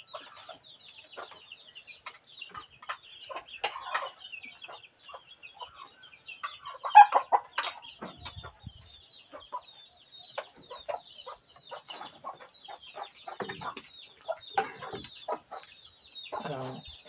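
Chickens clucking on and off, the loudest call about seven seconds in, mixed with short clinks of spoons and forks on plates and a thin steady high tone.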